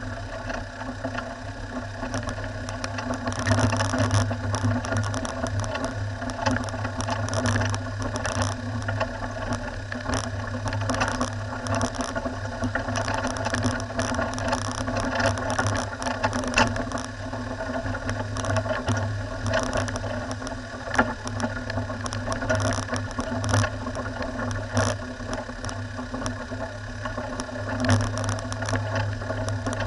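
A 4WD vehicle's engine running steadily at low speed over a rough gravel track, with many short knocks and rattles from the vehicle and the stones under the tyres.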